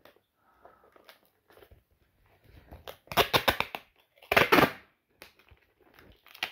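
Faint rustling, then two short bursts of crackly tearing and crinkling about three and four seconds in.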